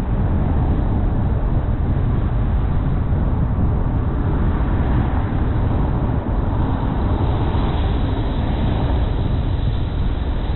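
A car driving at road speed: a steady low rumble of road and engine noise. A higher hiss grows stronger in the last few seconds.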